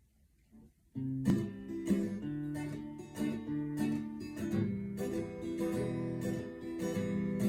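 Acoustic guitar starts playing about a second in, with strummed chords ringing on as an instrumental intro before the vocals.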